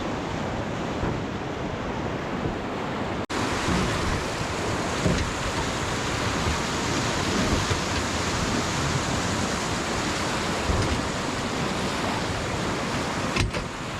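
River rapids rushing, a steady loud noise of churning whitewater, with wind buffeting the microphone. It cuts out for an instant about three seconds in.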